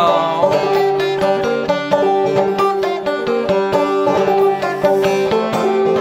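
Resonator banjo picked in a fast, continuous run of notes: an instrumental break between sung verses of an old-time folk song.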